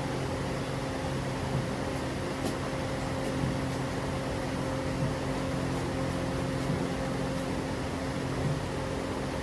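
Steady mechanical hum with an even hiss behind it, as from a fan or appliance motor, with a few faint ticks.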